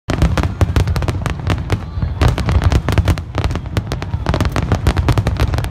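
Fireworks display in full barrage: many sharp cracks and bangs several a second, over a continuous heavy low rumble from the shells bursting.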